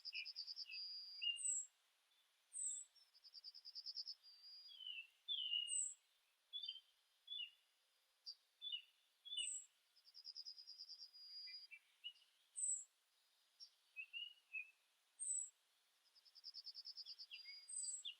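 Songbirds singing, faint: a rapid, even trill about a second long repeats every few seconds, among short high-pitched notes and scattered chirps from other birds.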